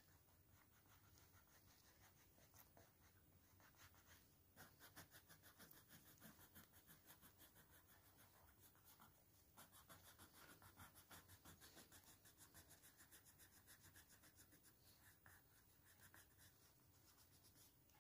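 Faint scratching of a coloured pencil on paper, filling in an area with quick back-and-forth strokes at about five a second. It starts about four and a half seconds in and pauses briefly around nine seconds.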